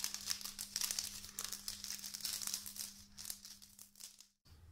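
Clear plastic sheet crinkling as it is wrapped by hand around a candy lollipop: a dense run of small crackles, thinning out after about three seconds. A steady low hum runs under it and stops just past four seconds.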